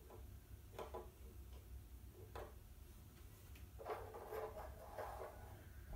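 Small toy figures set down on a wooden tabletop: a few light, separate knocks.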